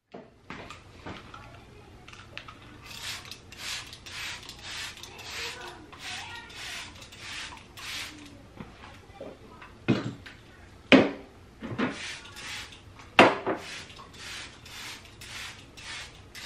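Dishes being hand-washed at a stainless steel kitchen sink: water splashing and sloshing in quick repeated bursts as a glass bottle is rinsed. There are a few sharp knocks of glass against the sink or other dishes, the loudest about ten, eleven and thirteen seconds in.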